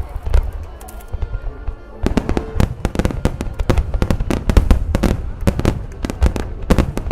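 Large starmine fireworks display: a rapid barrage of aerial shell bursts and crackling, thin at first, then dense and continuous from about two seconds in, with music playing underneath.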